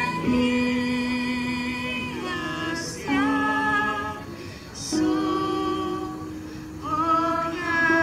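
Two women singing a slow song in long held phrases, with electronic keyboard accompaniment.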